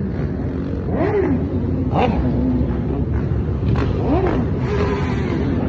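Motorcycle and dirt-bike engines passing close by, with several throttle revs that rise and fall in pitch over a steady rumble of many engines.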